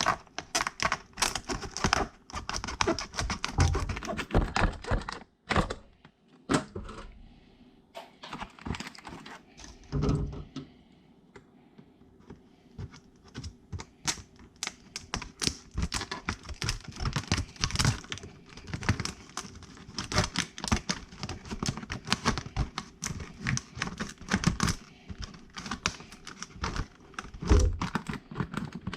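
Plastic packaging of a Bosch Daredevil spade bit set being handled and pried open: a dense, irregular run of small plastic clicks and rattles, with a few dull thumps around 4 and 10 seconds in.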